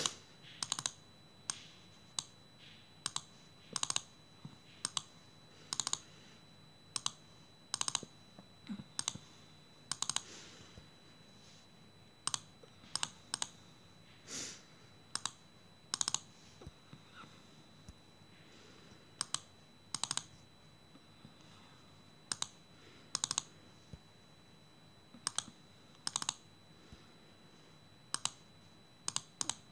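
Fingertip taps on a phone touchscreen, picked up by the phone's own microphone: irregular sharp clicks, some of them in quick pairs like double-taps.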